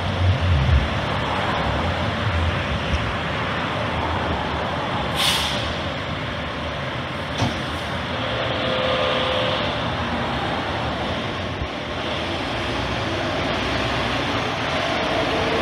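Aerial ladder fire truck's diesel engine running as the truck moves, with a sharp air-brake hiss about five seconds in and a smaller one a couple of seconds later.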